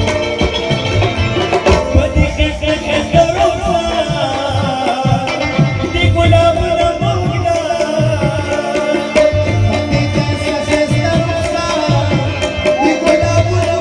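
Live Pashto tappa music: a rubab plays the melody over a steady tabla rhythm.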